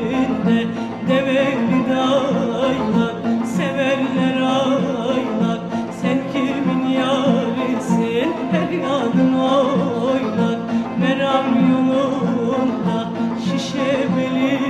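Turkish folk song (türkü) recording: an instrumental ensemble playing continuously, with a woman's singing voice.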